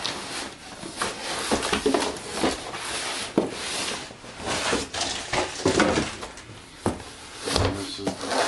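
Cardboard rustling and scraping as a boxed product is pulled out of a corrugated shipping carton and set down on a countertop, with several sharp knocks of box against box and counter.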